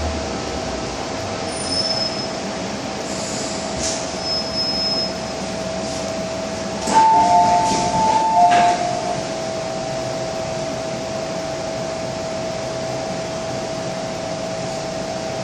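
Inside a Hong Kong MTR M-Train car standing at a platform, the train's equipment hums steadily. About seven seconds in, the doors open with a clunk and the two-tone door chime sounds for about a second and a half.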